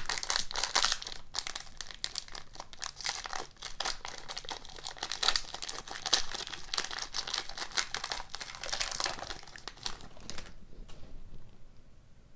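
Foil wrapper of a hockey trading-card pack crinkling and tearing as it is ripped open by hand. The crackling stops about ten seconds in, leaving only a faint click or two as the cards are handled.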